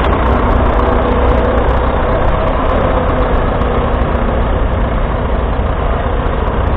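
A 1941 Fordson Model N's 4.4-litre four-cylinder paraffin (TVO) engine running steadily as the tractor draws a trailed plough.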